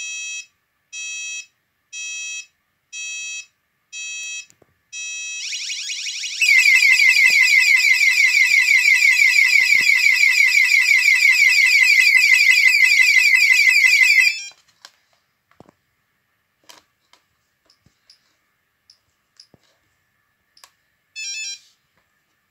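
Orisec CP-10 intruder alarm, fully armed: a pulsed warning beep about once a second, then a loud, rapidly sweeping alarm tone for about eight seconds that cuts off suddenly as a code is keyed in on the keypad. Faint key-press clicks follow, with a short burst of beeps near the end.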